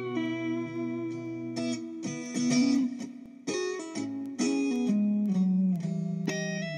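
Guitar music: single plucked notes and chords ringing out, several bending or sliding in pitch.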